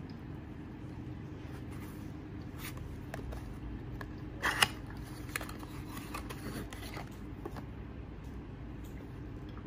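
Paperboard carton of a sun cream being handled and opened: light rustles and scrapes of card, with a louder crackle about four and a half seconds in as the end flap is pulled open and the tube slid out. A steady low hum runs underneath.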